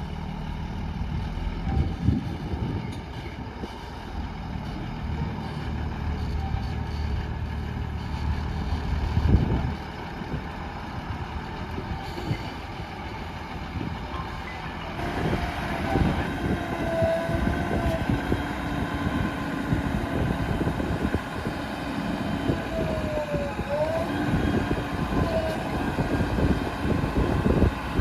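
JCB 3DX backhoe loader's diesel engine running under load while it digs and loads murum, with scattered knocks. The engine grows louder about halfway through, and short wavering whines come in over it.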